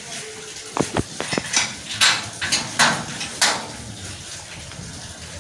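Padlock and slide bolt on a steel gate being unlocked and drawn by hand: a quick string of sharp metallic clinks and clanks over a few seconds, starting about a second in.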